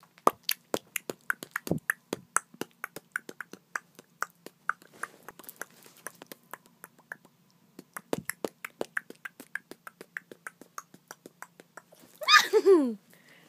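A rapid series of sharp clicks, about four or five a second, with a brief pause partway through. Near the end comes the loudest sound: a short pitched cry that falls in pitch.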